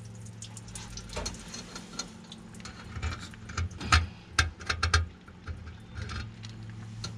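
Ratchet and socket clicking, with metal tool clinks, as a 7/8 socket works loose the coolant temperature probe on an Allis-Chalmers 5040 tractor engine. The clicks come in clusters, thickest in the middle, over a steady low hum.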